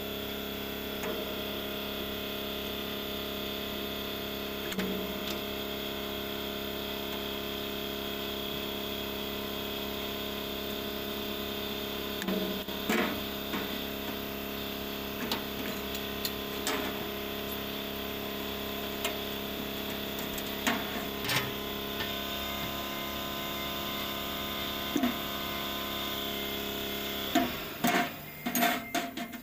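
Scattered metal clicks and taps as the bung cap on the lid of a steel oil drum is worked open with pliers, over a steady machine hum. The clicks come closer together and louder near the end.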